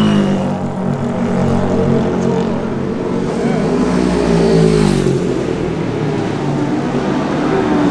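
Classic racing motorcycles passing at full speed on a street course, one after another, each engine note dropping in pitch as it goes by. One bike goes past right at the start, another about four to five seconds in, and the next is approaching near the end.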